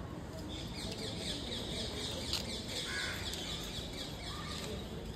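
Birds chirping outdoors: a quick run of short, high, falling notes for the first few seconds, over a steady low background rumble.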